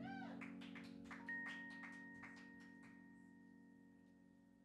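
A held keyboard chord, sustained and slowly fading, with light taps in its first couple of seconds and a high tone coming in about a second in.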